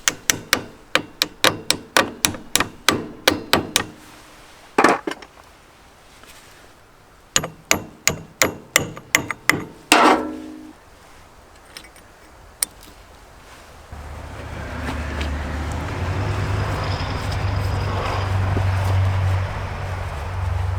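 Rapid hammer blows, about four a second, in two runs with a heavier blow at the end of the second. From about two-thirds of the way through, a steady low hum sets in.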